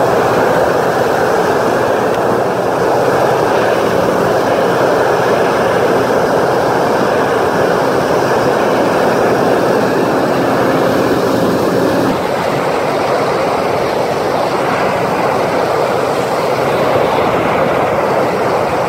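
Speedboat running fast: steady engine noise mixed with water rushing and splashing along the hull, with wind on the microphone. The sound shifts about twelve seconds in, the engine tone fading under the water and wind noise.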